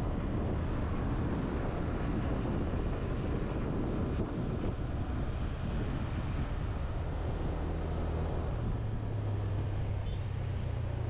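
Engine of a moving vehicle running at low speed, with a steady road and wind rush. The engine note rises a little after about eight seconds.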